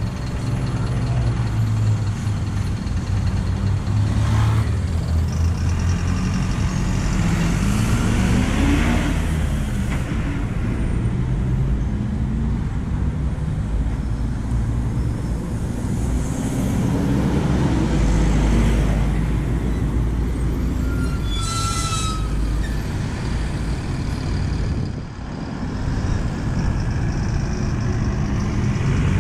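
Diesel city buses running at a stop and pulling away, their engines revving up twice in rising sweeps over a steady traffic drone. A brief high brake squeal and air hiss come about two-thirds of the way through.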